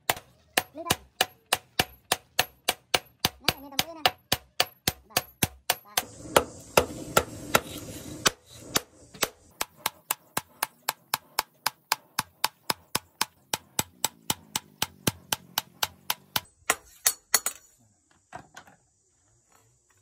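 Hand hammer forging a hot knife blade on a small steel anvil block: steady metallic strikes about two and a half a second, each with a short ring, stopping a couple of seconds before the end after a few lighter taps.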